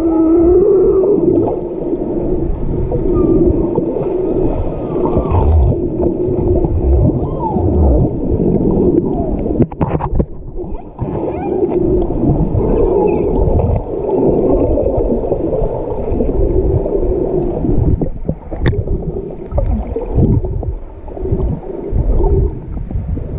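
Humpback whales calling underwater: a drawn-out low call that runs almost unbroken, with shorter rising and falling tones above it, over a low rumbling water noise. A couple of sharp clicks come partway through.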